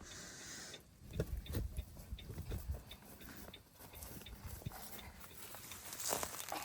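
Footsteps with irregular soft thuds of hay bales being handled and tossed.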